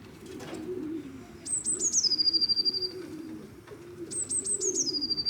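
Pigeons cooing in a low, wavering murmur. Twice, a small bird's high, thin song cuts over it: a few quick notes sliding down into one held tone.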